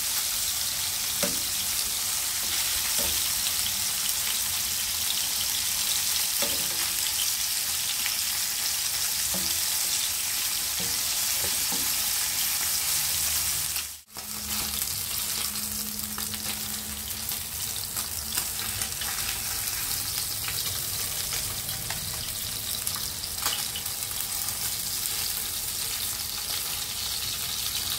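Salmon pieces sizzling steadily in hot oil in a frying pan, with occasional light clicks of tongs turning them. The sizzle cuts out for an instant about halfway through.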